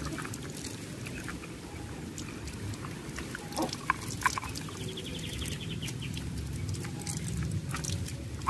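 Water running from a garden hose onto a plastic toy truck held in the hand, splashing and trickling, with scattered clicks of the plastic and a short rapid ticking about halfway through.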